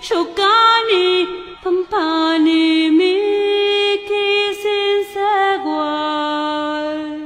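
A solo voice sings a slow, chant-like melody in long held notes, each lasting a second or two, with no accompaniment heard. The phrase ends near the end.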